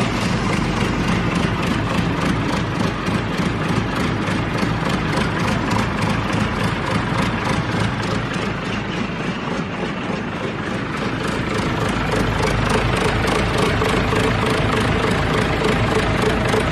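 Four-cylinder 4105 diesel engine of a concrete pump running loud and steady at idle, just after starting.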